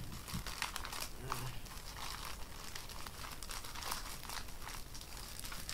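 Plastic shipping bag crinkling with many quick, irregular crackles as it is pulled open by hand.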